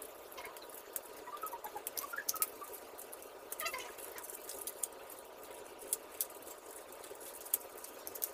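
3D puzzle pieces being handled and pressed together by hand, with light irregular clicks and rubbing and a few short squeaks in the first half.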